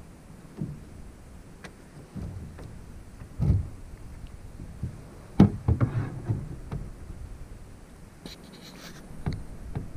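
Canoe being paddled on calm water: irregular dull knocks and thumps on the hull, the sharpest about five and a half seconds in, with a brief splashy hiss near the end.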